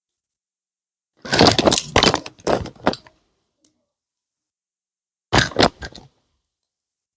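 Plastic toy packaging crackling and crinkling as it is handled, in two bursts: a longer one about a second in and a shorter one about five seconds in.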